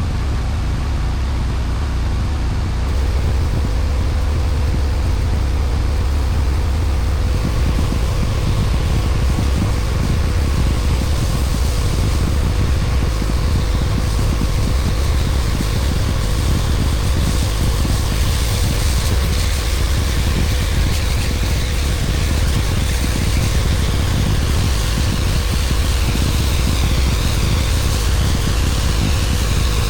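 Pressure-washing rig running steadily: an engine hum with the hiss of spraying water over it. The hiss grows louder about three seconds in and again from about eleven seconds.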